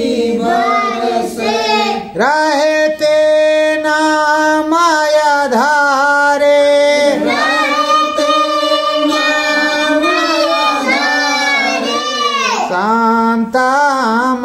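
A voice singing a Hindi devotional prayer song (bhajan) in praise of the Satguru, drawing out long held notes that bend and slide between syllables.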